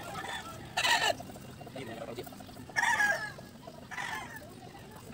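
Domestic chickens clucking: a short, loud call about a second in, another around three seconds, and a fainter one just after four seconds.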